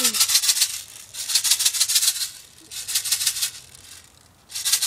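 Small plastic airsoft BBs rattling as their container is shaken, in four short bursts of fast rattling with pauses between.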